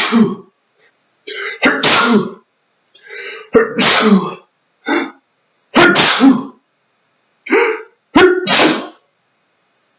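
A man's sneezing fit: about five loud sneezes a second or two apart, most with a quick intake of breath just before. It is an allergic reaction to chinchilla dust-bath dust.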